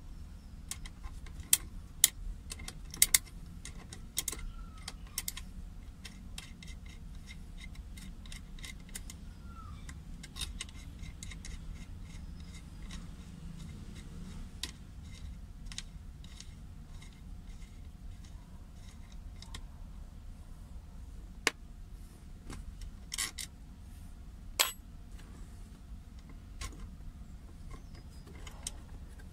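Small metal hand tools clinking and clicking against the steel handbrake lever mechanism and cable-end fitting as they are worked loose. The clicks are scattered and irregular, thickest in the first few seconds, with two single louder clinks in the second half.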